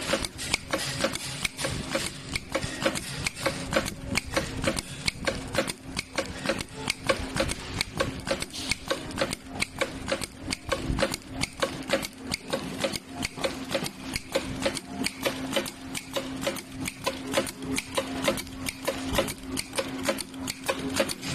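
Computer-programmable double-needle walking-foot industrial sewing machine stitching thick quilted upholstery: an even, steady ticking of the needles and feed, a few stitches a second, over a low steady motor hum.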